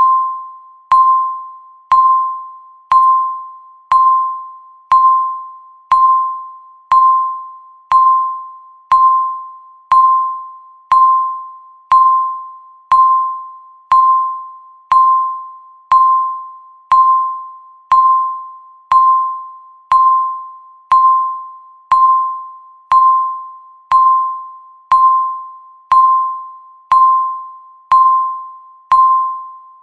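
Countdown timer's per-second beep: a single bell-like tone that strikes once every second and fades away before the next.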